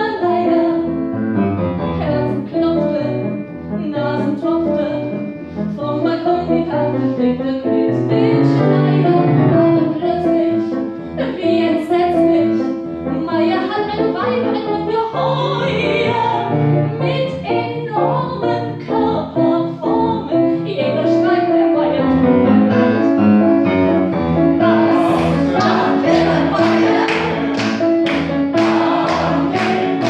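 A woman singing a German song with grand piano accompaniment. Near the end a man's voice joins in, and a steady beat of sharp handclaps comes in over the last few seconds.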